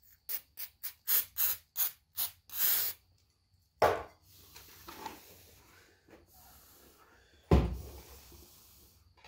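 CA glue accelerator spray bottle spritzed about eight times in quick succession, the last a longer squirt, to set the glue on a seam. A bump follows, then a louder thud about three-quarters of the way through.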